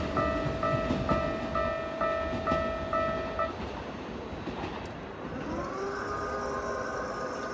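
Japanese railway level-crossing alarm ringing its two-tone electronic 'kan-kan' warning about twice a second over the fading rumble of a passing train, then cutting off a little over three seconds in. Near the end a rising electric whine comes in and settles into a steady tone.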